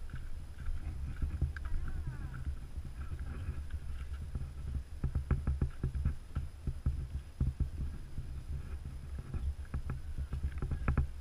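Corgi puppies' paws scrabbling and tapping close to a ground-level microphone: a run of sharp clicks and taps starts about halfway through, over a steady low rumble on the microphone.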